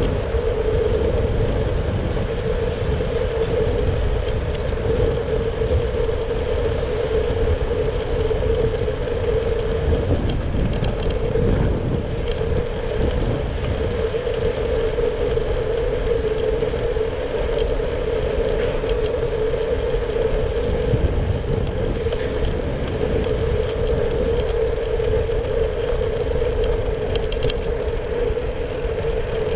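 Ride noise from a Brompton folding bike rolling along city streets: a constant low rumble of tyres and road with a steady humming whir over it, among traffic.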